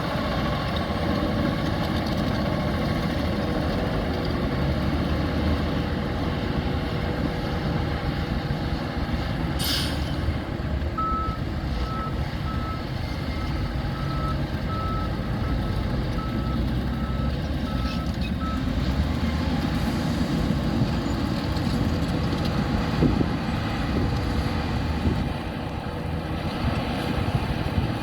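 Heavy construction machinery running with a steady low diesel rumble. About ten seconds in there is a short hiss of air. Then a reversing alarm beeps steadily for about seven seconds.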